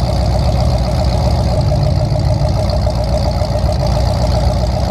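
Full-size demolition derby pickup's engine idling steadily, heard from inside the gutted cab, its exhaust venting through open stacks up through the hood.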